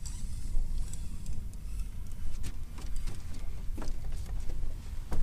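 Wind buffeting an open-air microphone as a steady low rumble, with a few scattered clicks and knocks.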